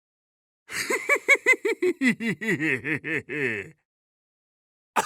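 A person laughing: a quick run of 'ha' pulses, about five a second, that starts high and slides down in pitch over about three seconds and trails off breathily. Another laugh begins right at the end.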